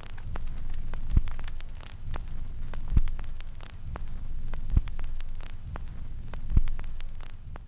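Sound-design bed for the end credits: crackling static over a low rumbling hum, with a deep thump four times, about every two seconds.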